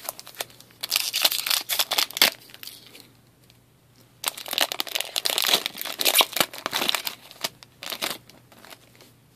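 Foil wrapper of an Upper Deck SPx hockey card pack being torn open and crinkled in the hands, in two bouts of crackling: one about a second in and a longer one from about four seconds in.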